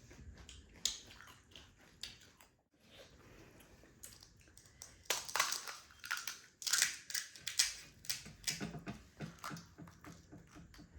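Close-miked crunching and chewing of crisp pani puri (gol gappa) shells, with a dense run of loud crunches about halfway through, then softer chewing.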